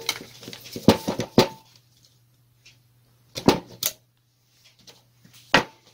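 A few sharp clicks and taps, spaced out with quiet between them, of pliers and small plastic and metal parts as the carbon brushes are taken out of an angle grinder's motor housing.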